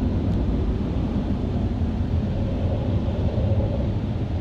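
Air dryers of a PDQ LaserWash 360 Plus touchless car wash blowing on the car, a steady low rush of air heard muffled from inside the car's cabin.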